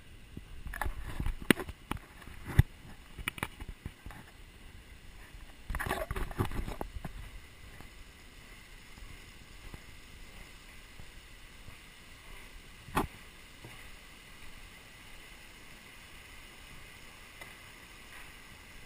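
A river rushing steadily under a wooden suspension bridge, with a run of sharp knocks and clatters from footsteps on the bridge's planks in the first seven seconds and a single sharp knock about thirteen seconds in.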